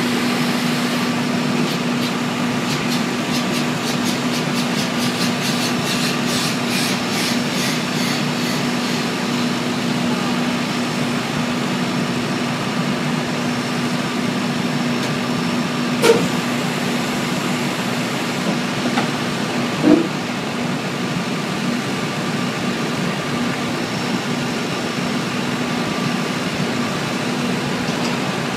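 Steady hum of ground support equipment running beside an Airbus A380 during a landing-gear retraction test on jacks. Light rapid ticking comes in the first several seconds, then a sharp click about sixteen seconds in and a short knock about twenty seconds in, as the nose gear stows and its doors close.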